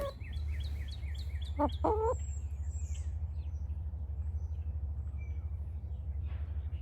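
Wyandotte hens vocalizing softly: a quick run of short, high, falling chirps, then a lower call about two seconds in, with only faint chirps after that. A steady low hum runs underneath.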